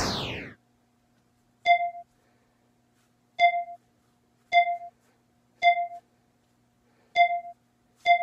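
Dubbed-in cartoon sound effects. A short falling whoosh comes right at the start, then six short electronic beeps, all at the same mid pitch and each opening with a click, spaced one to one and a half seconds apart.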